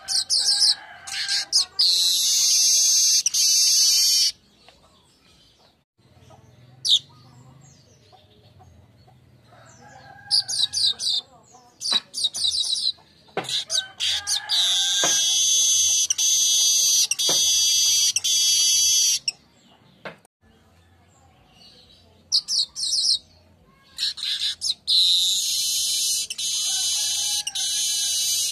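Manyar (weaver bird) singing hard: each song opens with a quick run of short high chips and ends in a long, loud, wheezy buzz lasting a few seconds, repeated three times with short pauses between.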